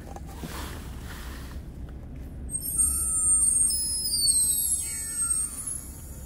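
High-pressure air from a filling cylinder rushing into an EDgun Leshiy 2 PCP air rifle: from about two and a half seconds in, a shrill hiss with several high whistles, some tones gliding down in pitch, stopping shortly before the end as the rifle is topped up to about 200 bar.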